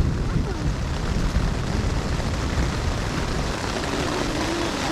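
Thunderstorm wind and rain on a tent: a steady rushing noise with low, rumbling gusts buffeting the microphone.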